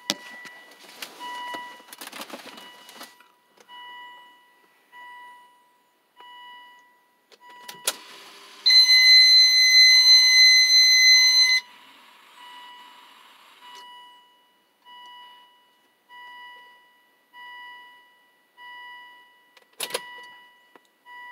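Volvo S60R's door-open warning chime: a soft ding repeating about every second and a quarter, the car's signal that the driver's door is open. About eight seconds in there is a click, then a loud, steady, high electronic beep for about three seconds as the ignition comes on and the gauges light up. Rustling at the start and another click near the end.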